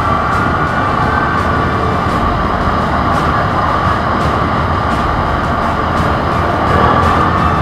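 Quad bike (ATV) engine running at a steady cruising pace, with a steady whine that drifts slightly in pitch over a constant rush of engine and wind noise.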